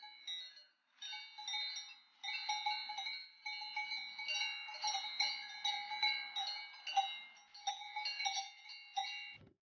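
Cowbells on grazing cows clanking irregularly as the animals move, each clank ringing with a bright metallic tone; the sound cuts off suddenly near the end.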